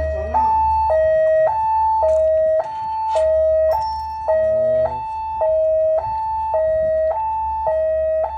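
Railway level-crossing warning siren under test, sounding a steady two-tone alarm that switches between a lower and a higher tone about every half second.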